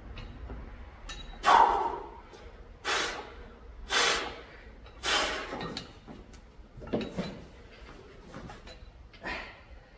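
A man breathing out hard and forcefully in time with one-arm dumbbell lateral raises, a heavy breath every second or so, six in all. The loudest comes about a second and a half in, and they get weaker toward the end as the set goes on.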